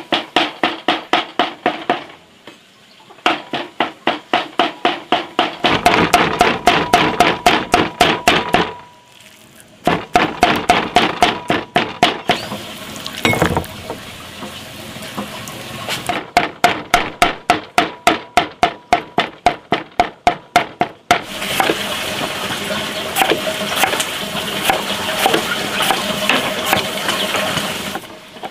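A cleaver chopping rapidly on a chopping board, mincing pork, about four strokes a second, in runs of several seconds broken by short pauses. From about two thirds of the way through, a steadier hiss with light clicks takes over.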